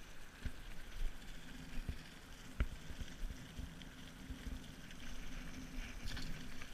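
Low rumble of handling noise with a few sharp knocks, then a small splash about six seconds in as a bass is dropped back into the pond.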